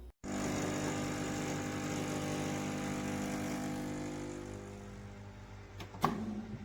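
Espresso machine's pump running with a steady hum that slowly fades, followed near the end by a sharp knock.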